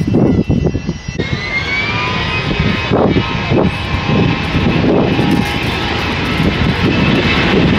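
Fokker 100 airliner's twin Rolls-Royce Tay turbofans spooling up to takeoff power about a second in, then running loud and steady with a high whine as the jet starts its takeoff roll.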